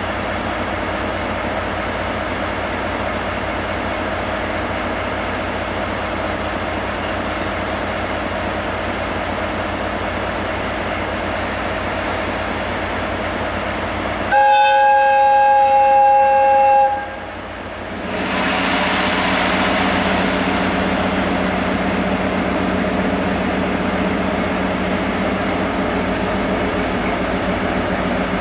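DE10 diesel-hydraulic locomotive's V12 diesel engine idling steadily, then its two-tone horn sounds loudly for about three seconds about halfway through and cuts off. About a second later the engine runs up louder and stays up as the locomotive throttles up to depart.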